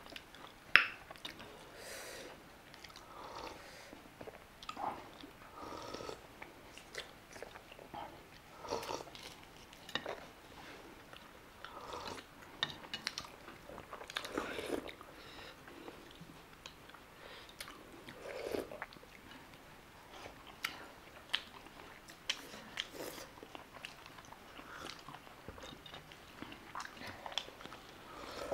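A person chewing and biting into steamed chicken momo dumplings in short, irregular mouthfuls. A sharp click about a second in is the loudest sound.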